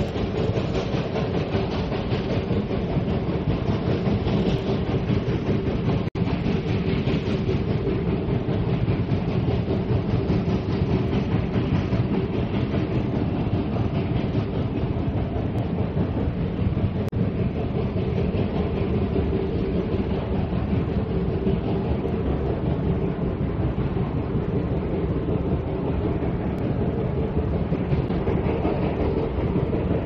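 Black Hills Central Railroad train rolling along the track: a steady rumble of wheels on rail with clickety-clack, plus a momentary break about six seconds in.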